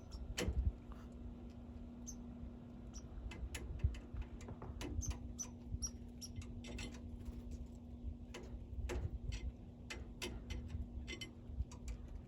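Pileated woodpecker pecking at wood: irregular sharp taps and knocks, unevenly spaced, not a steady drumming roll.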